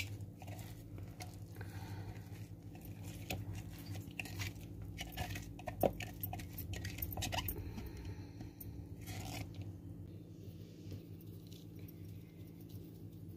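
Light clicks and scrapes of hands and a spoon working over a bowl of chopped vegetables while seasoning is added, over a steady low hum. The clicks are busiest in the first half and thin out after about eight seconds.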